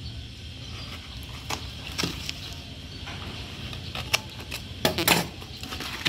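Hands handling and tearing open a taped cardboard parcel: scattered rustles, scrapes and small clicks of cardboard and packing tape, with louder crinkling about five seconds in.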